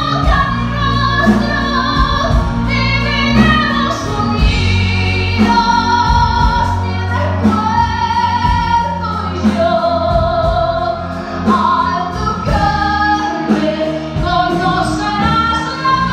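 Musical theatre singing with orchestra: long held sung notes, with several voices together, over a steady pulse of low beats.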